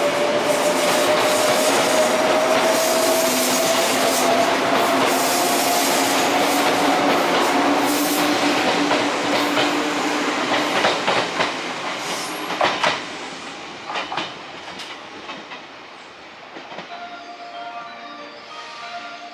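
Izukyu 2100 series Resort 21 electric train pulling away: a motor whine rises steadily in pitch over loud wheel rumble. Then the wheels clack over rail joints as it fades. A station melody chime starts near the end.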